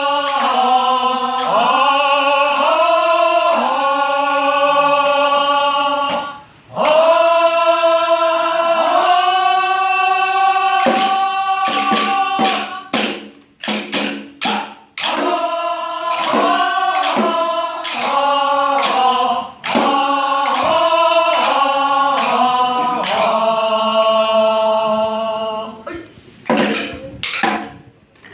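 Korean traditional singing (sori) without accompaniment: one voice holding long, wavering notes that bend in pitch, with short breaks between phrases and no drum.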